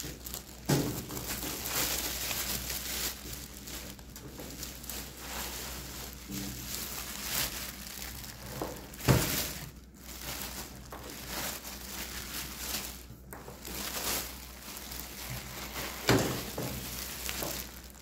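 Thin low-density polyethylene (LDPE) bag crinkling and rustling as it is pulled off a countertop oven, with a few short bumps at about 1, 9 and 16 seconds in, the one near 9 seconds the loudest.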